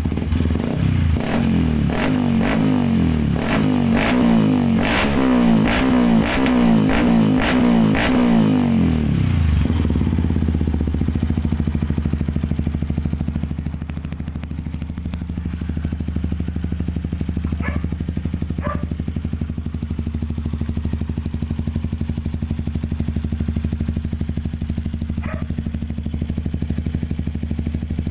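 Yamaha WR155R's 155 cc single-cylinder engine breathing through a Norifumi aftermarket exhaust, blipped in a quick run of repeated revs for the first nine seconds or so. It then drops back and settles to a steady idle.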